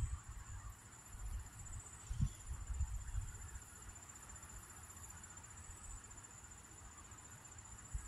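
Insects trilling steadily at a high pitch, with a few low rumbling bumps on the microphone about two to three seconds in.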